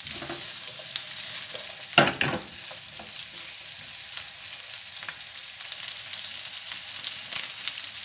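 Diced chicken, onion and carrot sizzling in oil in a non-stick frying pan, stirred with a wooden spoon, with a steady hiss. One louder stroke of the spoon against the pan comes about two seconds in, and a few light clicks follow later.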